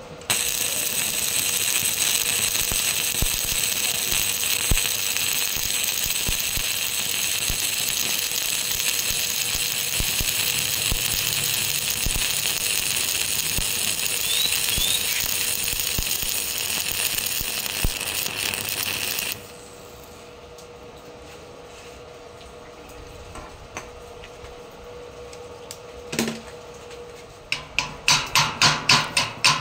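Stick-welding arc from a coated electrode crackling and hissing steadily while a horizontal fillet weld is run on thick steel plate; the arc cuts off about two thirds of the way through. Near the end a chipping hammer strikes the weld bead about three times a second, knocking off the slag.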